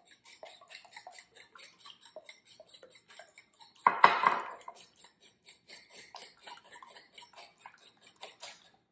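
A fork beating eggs in a ceramic bowl, tapping quickly and steadily against the sides, with one louder clatter about four seconds in.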